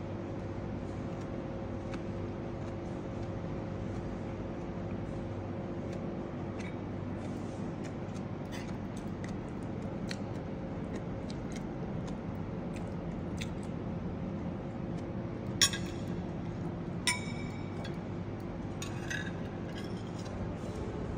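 Metal cutlery clinking and tapping against ceramic plates and bowls during a meal: scattered light clicks, then two sharp ringing clinks about three-quarters of the way through, over a steady low hum.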